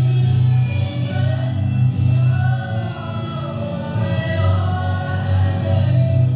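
Live band performance of a rock song, with sung vocals over the instruments.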